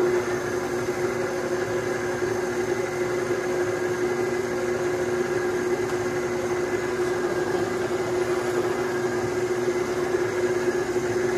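Electric stand mixer running at a steady speed, a constant motor hum with a fixed pitch, as its dough hook mixes flour, eggs and yeast into donut dough.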